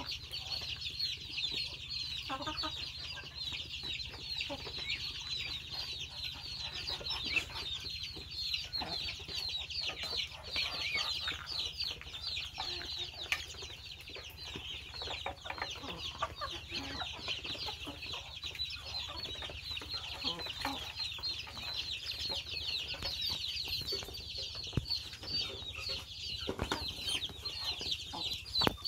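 Chicks peeping without a break in a dense, high-pitched chorus, with hens clucking among them.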